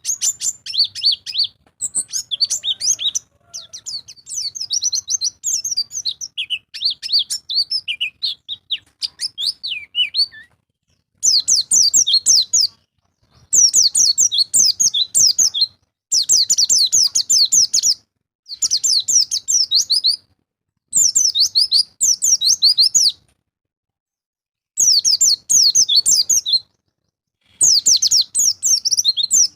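White-eye (pleci) song. For the first ten seconds it is a varied high twittering of short chirps; after that come repeated fast, high trilled phrases, each about two seconds long, with short silent breaks between them.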